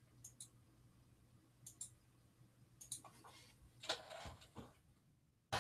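Faint, irregular clicks of a computer mouse and keyboard, about ten scattered taps. The loudest click comes near the end.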